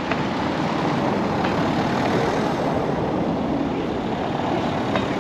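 A car driving past on a cobbled street, its tyres rumbling steadily over the stone setts, swelling a little as it comes near.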